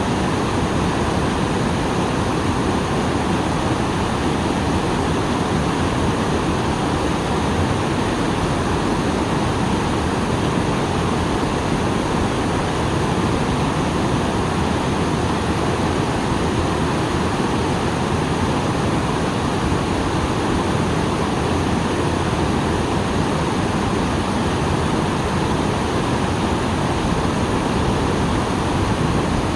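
Small waterfall on a stream, running full after rain: steady, unbroken rushing of water.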